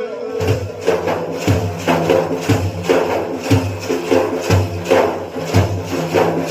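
Frame drums beating a steady rhythm, about two strokes a second with deep low thuds, in an instrumental passage of a manqaba with no singing.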